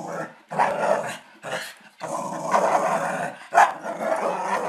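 Small dog growling in rough spells broken by short pauses, with one louder, sharper bark-like burst about three and a half seconds in.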